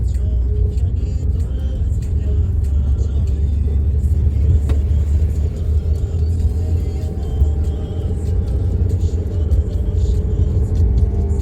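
A steady, loud low engine rumble that does not let up, with music playing over it.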